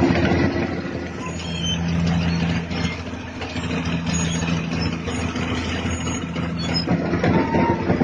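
Caterpillar D6R bulldozer's diesel engine running steadily as it tows a large rubber pipe. A thin whine comes in near the end.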